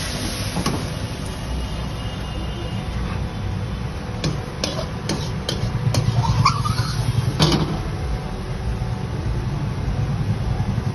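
Busy street-food-stall background: a steady low rumble of passing traffic, with a few sharp metal clinks of a steel ladle and utensils, several between four and five and a half seconds in and a louder one about seven and a half seconds in.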